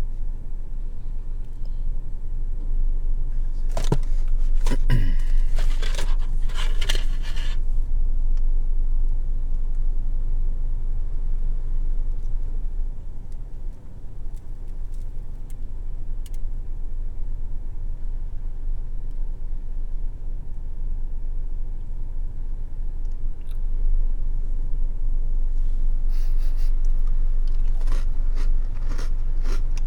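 A steady low rumble throughout, with bursts of crinkly rustling from a biscuit wrapper being handled about four to seven seconds in and again near the end.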